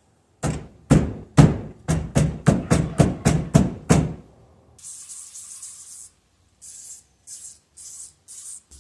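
A string of about eleven heavy knocks, roughly three a second, as the stuck steering wheel is struck to break it loose from its shaft, followed by one long hissing burst and four shorter ones.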